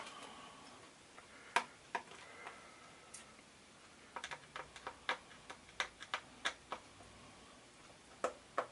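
A small screwdriver working tiny screws out of a Commodore 64 keyboard's frame: sharp, irregular light clicks, coming quicker for a few seconds in the middle.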